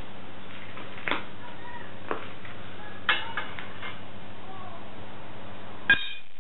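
A few sharp clicks and clinks of metal parts being handled: a metal tube laid across a TV antenna boom as a pole and a U-bolt clamp being fitted, the loudest clink near the end.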